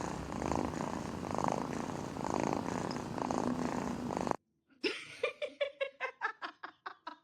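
Cat purring loudly and continuously, right at the microphone, swelling and easing in slow waves with its breathing. It stops abruptly at a cut. After a brief silence comes a quick run of short pitched pulses, about five a second.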